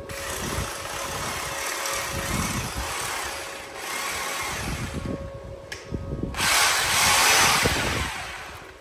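Power tool running in bursts of harsh noise, loudest and hissiest from about six to eight seconds in.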